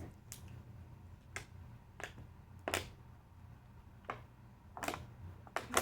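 Light, sharp clicks or taps, about seven of them at irregular intervals, in a quiet room.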